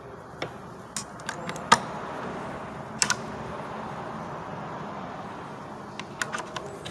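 Hand tools clinking and knocking as they are handled: a scattered run of sharp metallic clicks over a soft steady hiss.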